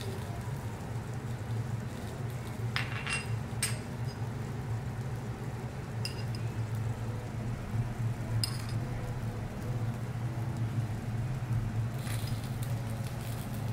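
Glassware and tableware clinking a few times over a steady low hum: three sharp clinks close together about three seconds in, then single ones around six and eight seconds, and fainter ones near the end.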